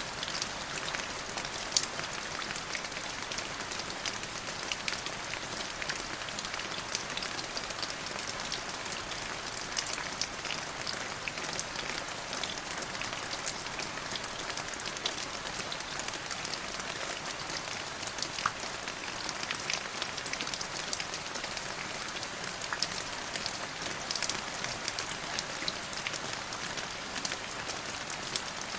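Steady rain: a dense, even hiss with many separate drops ticking through it.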